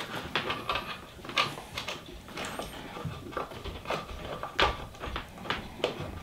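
Scattered light clicks and rustles of hands handling the 3D printer's wiring and parts, irregular and without any steady hum.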